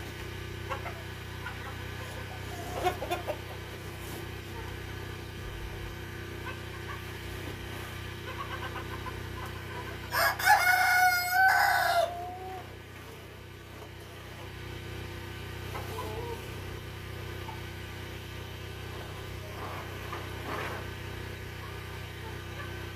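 A rooster crowing once, a drawn-out call of about two seconds that drops in pitch at its end, about ten seconds in; a few short clucks from the hens come now and then.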